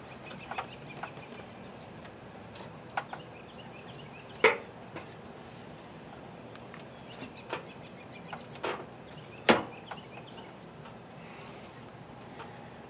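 Scattered knocks and clicks of hand work on a radiator being set into a car's engine bay, the loudest about four and a half and nine and a half seconds in.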